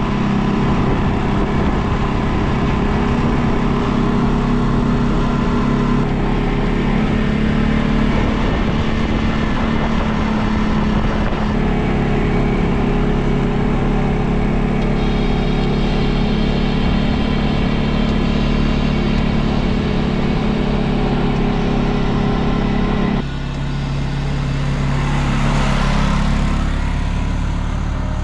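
A CF Moto 625 quad's single-cylinder engine runs at a steady pace on a gravel track. About 23 seconds in the sound drops, then swells and fades as the quad drives past close by.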